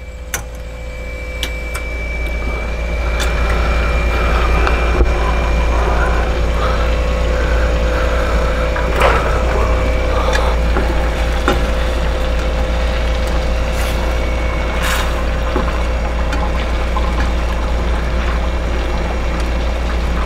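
Balsamic vinegar simmering in a skillet on a gas burner as it reduces and thickens: a steady bubbling hiss that builds over the first few seconds, over a constant low hum. A handful of sharp knocks from a metal strainer and a spatula against the pans.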